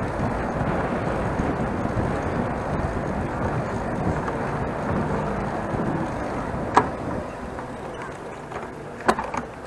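Wind rushing over the microphone and road noise from a bicycle riding along a city bikeway, easing a little in the last few seconds, with two sharp clicks about seven and nine seconds in.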